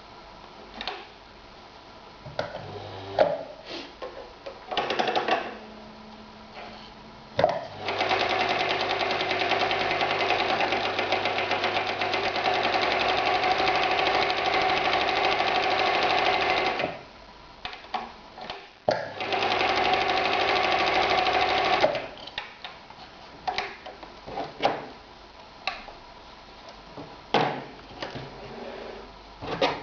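Husqvarna 2760 sewing machine stitching through leather: one long steady run of about nine seconds, then after a short pause a second run of about three seconds. Scattered clicks and short handling noises come before, between and after the runs.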